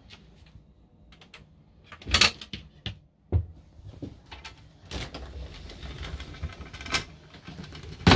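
Cupboard doors and latches being opened and closed: a run of clicks and knocks, the loudest about two seconds in and at the very end.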